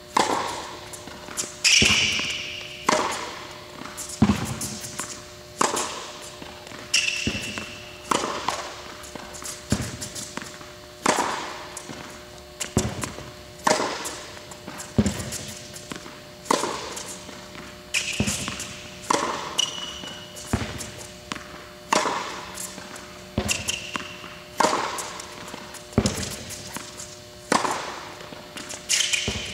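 Tennis ball struck by a racket and bouncing on an indoor hard court in a steady rally, a sharp echoing hit about every second or so, with short sneaker squeaks now and then.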